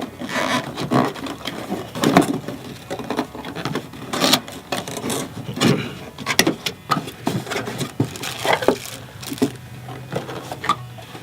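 Cardboard packaging being opened and handled by hand: irregular knocks, scrapes and rustling as a pop filter is taken out of its box.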